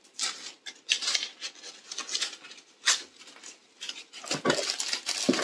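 Handling noises as packaging and crystals are sorted: rustling and light clicks and knocks in irregular bursts, busiest near the end.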